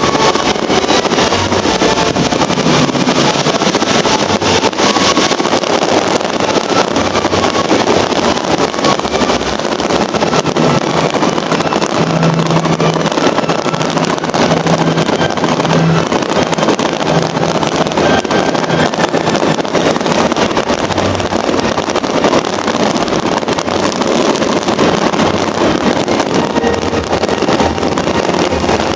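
A fireworks display at full intensity: a dense, continuous run of bangs and crackles, with wind on the microphone.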